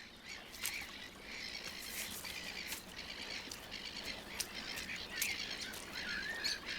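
Black-headed gull colony calling: many short, sharp calls overlapping one another, with a few bending calls near the end.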